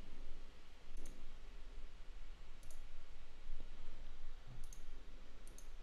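Computer mouse buttons clicking faintly several times, a few clicks coming in quick pairs, over a low steady hum.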